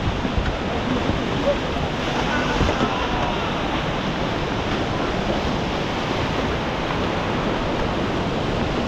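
Whitewater rapids rushing: a steady, unbroken noise of churning river water close to the microphone.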